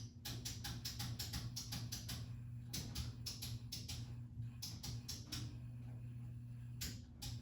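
52-inch ceiling fan running with a steady low hum and a rapid, uneven clicking, several clicks a second.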